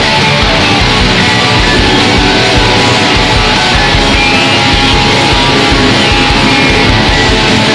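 Electric cigar box guitar playing a loud, continuous rock piece over a steady, even beat.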